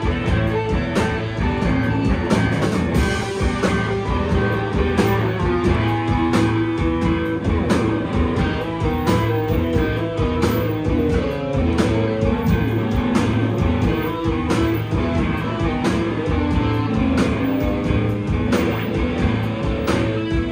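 Live rock-and-roll band playing an instrumental passage: loud electric guitars over a steady drum beat.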